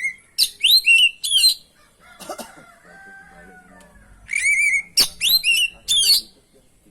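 Oriental magpie-robin (kacer) singing two loud bursts of song, each a warbled note followed by a quick run of sharp rising whistles. A fainter, lower, drawn-out call sounds in the gap between the bursts.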